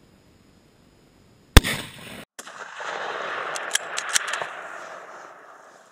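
A single hunting-rifle shot about one and a half seconds in, sharp and loud, followed by a few seconds of rushing noise with several sharp clicks.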